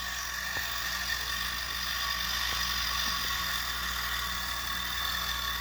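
Clockwork wind-up motor of a vintage tin toy helicopter running with a steady mechanical whir.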